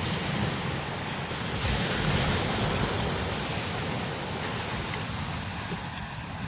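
Strong desert wind blowing across the dunes in a steady rushing hiss, with a buffeting low rumble and a stronger gust about two seconds in.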